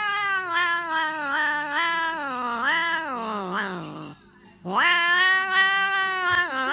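Tabby cat yowling in two long, drawn-out calls. The first wavers up and down and falls away about four seconds in; after a short pause the second rises and holds.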